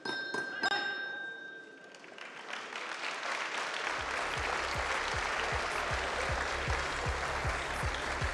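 Boxing ring bell struck about three times in quick succession, ringing briefly and signalling the stoppage of the fight. The crowd then cheers and applauds, and about four seconds in, arena music with a steady beat comes in.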